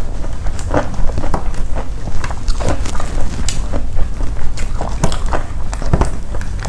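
Close-up crunchy chewing of crispy fried shredded fish, with irregular crackles several times a second.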